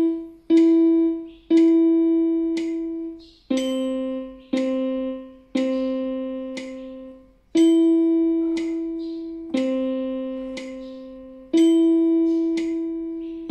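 Yamaha portable keyboard playing a slow beginner exercise on E and middle C, one note at a time, each note struck and left to fade. It goes E, E held, then C, C, C held, then long E and C notes in turn. A light metronome click falls on the beats.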